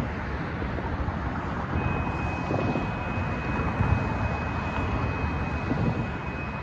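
Railroad crossing warning bell begins ringing about two seconds in, a steady high tone as the crossing activates, over the rumble of cars passing through the crossing.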